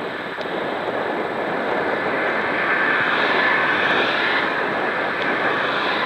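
Steady rushing noise of a bicycle ridden fast on a cycle path: wind on the bike-mounted camera and tyres on the tarmac, with traffic on the road alongside. It grows a little louder about halfway through.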